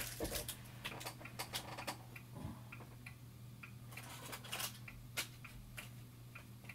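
Faint, scattered clicks and light taps at an irregular pace, the sound of small objects being handled and moved on a workbench, over a low steady hum.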